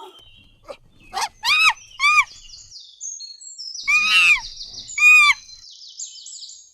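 Monkey calls: a string of short, loud, high-pitched calls, each rising and falling in pitch, with quick high chirping of birds behind them in the second half.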